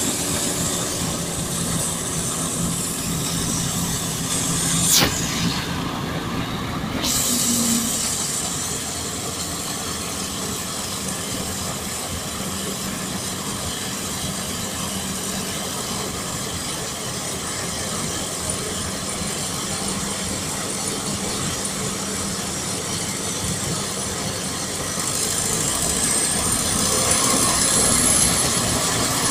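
SK-5 Niva combine harvester running steadily while harvesting damp barley, engine, threshing gear and straw chopper all working under load. A high whine rises then falls near the end as the machine passes closer and grows louder.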